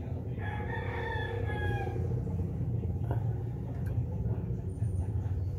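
An animal call, one drawn-out cry about a second and a half long that falls slightly at its end, over a steady low hum. A faint click comes about three seconds in.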